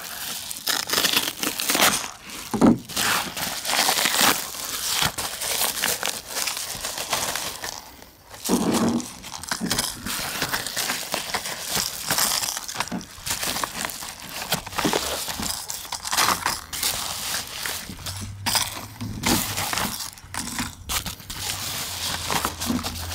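Padded paper bubble mailer being torn open and rummaged through, the paper crinkling and tearing in short irregular strokes, with stiff plastic blister packs of fishing lures rustling and clicking as they are pulled out.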